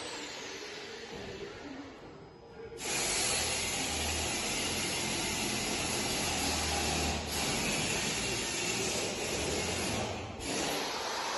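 24 V DC electric linear actuator of a glazed aluminium roof hatch running as it pushes the lid open, a low hum under a loud steady hiss. The hiss drops away briefly, then cuts back in sharply about three seconds in and holds.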